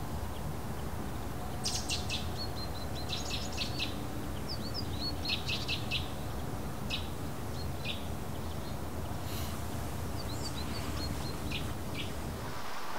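Small birds chirping in clusters of short, high calls and quick clicky notes, starting about two seconds in and coming and going until near the end, over a steady low background rumble.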